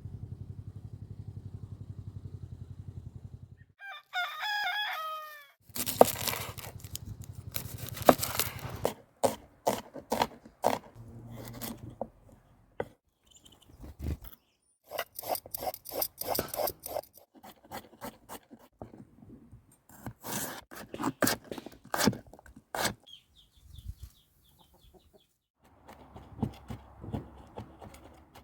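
A rooster crows once, about four seconds in, after a low pulsing hum that stops. Scattered knocks, clicks and clatter of handling things follow.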